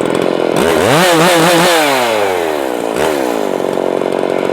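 Ported 56cc Makita 5600 two-stroke chainsaw revved up from idle about half a second in, blipped a few times at high revs, then easing back down to idle by about three seconds, with one more short blip.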